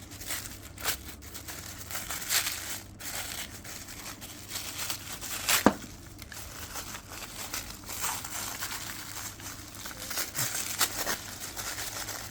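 Packaging being handled: irregular crinkling and rustling of wrapping, with scattered light clicks and one sharper click about five and a half seconds in.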